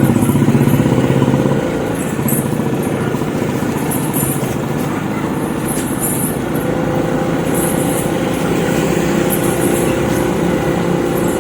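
Motor vehicle engine running steadily, with a steady pitched note that drops in level a little under two seconds in.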